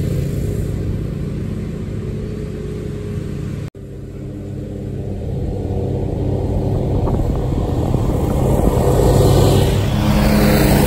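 Exmark zero-turn mower running with its deck engaged and cutting grass: a steady, low engine drone. It drops out for an instant a little under four seconds in, then grows steadily louder as the mower comes closer.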